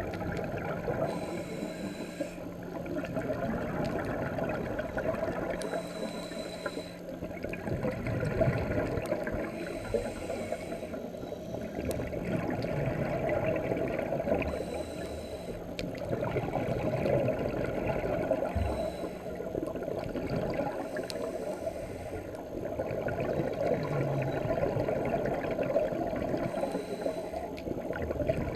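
Scuba diver breathing through a regulator underwater: short hissing inhalations with a faint whistle alternate with gurgling bubbles of exhaled air, one breath about every four seconds, muffled through the camera's underwater housing.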